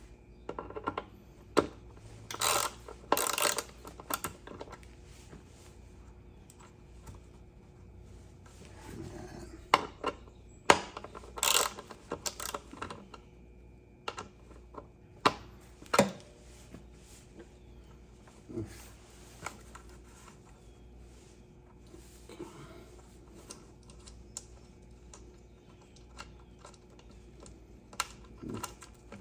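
Irregular small metallic clicks and clinks of hand tools working screws and a nut loose on a motorcycle's rear mudguard mounts, with two short bursts of rapid rattling clicks, about two to four seconds in and again around eleven to twelve seconds.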